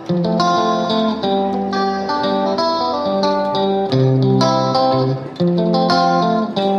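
Background music led by guitar: plucked notes over held low bass notes.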